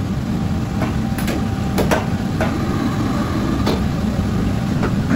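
Steady low rumble of a commercial kitchen's wok range and extraction, with a few short sharp clicks scattered through it.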